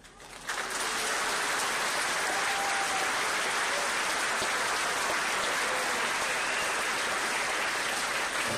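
Audience applause, starting about half a second in and holding steady.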